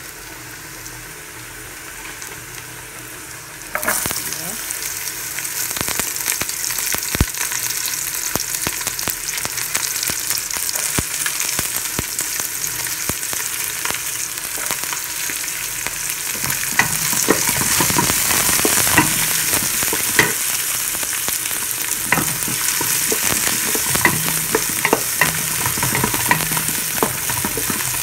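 Garlic frying in hot oil in an aluminium pot, stirred with a wooden spatula. About four seconds in the sizzle jumps louder as chopped red onions go into the oil, and the spatula keeps scraping and tapping against the pot.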